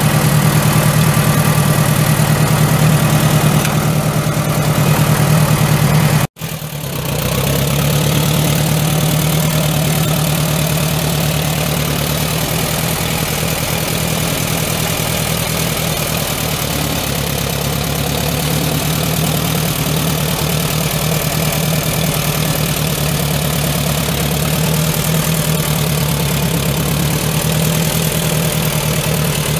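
J I Case 312 tractor's four-cylinder gas engine running steadily, with the sound cutting out for a moment about six seconds in.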